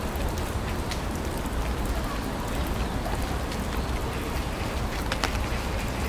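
Steady summer monsoon rain falling on foliage, an even hiss with scattered drops ticking close by and a low rumble underneath.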